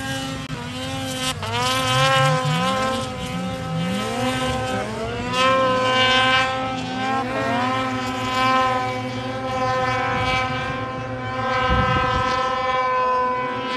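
Snowmobile engines revving hard under load on a deep-snow hill climb, pitch repeatedly rising and dropping back as the throttle is worked. More than one sled is running at once.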